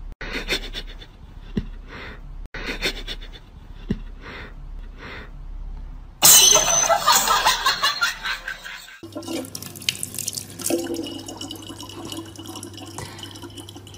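Thin stream of tap water trickling into the open neck of a plastic water bottle, a steady splashing for the last five seconds or so. Before it, about six seconds in, a loud harsh burst of noise lasts about three seconds.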